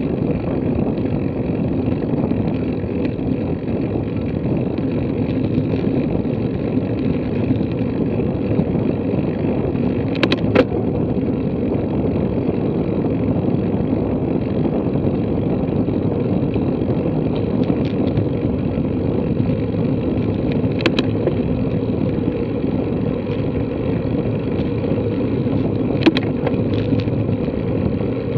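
Steady rumble of a road bicycle's tyres on asphalt mixed with wind, picked up by a camera mounted on the bike during a slow climb, with a few sharp clicks about a third, two thirds and nine tenths of the way through.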